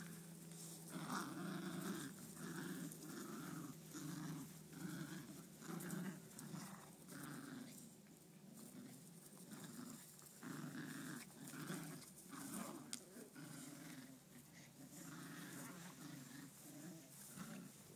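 Dogs growling in play in rapid, irregular short bouts while tugging at a toy made of knotted socks.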